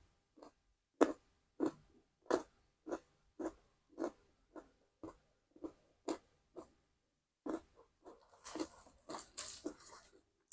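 Close-miked chewing of food, crisp strokes at about two a second, turning denser and wetter near the end.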